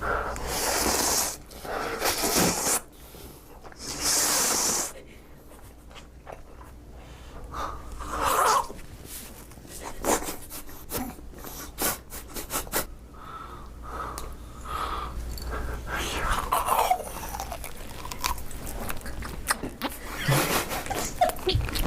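A person eating noisily, with mouth clicks and smacks, short vocal noises and three loud breathy blasts in the first five seconds.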